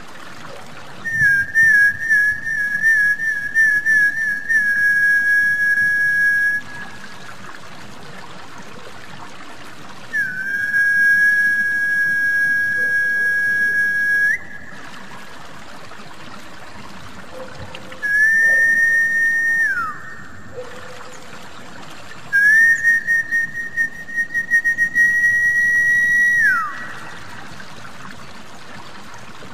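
Snakehead-fish lure whistle: four high whistled calls, some warbling and some held steady, two of them ending in a quick falling glide, over a steady trickle of water.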